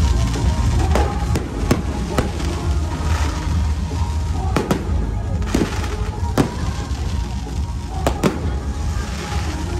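Aerial firework shells bursting in a string of sharp bangs, about nine irregularly spaced and some in quick pairs, over loud music with a steady bass.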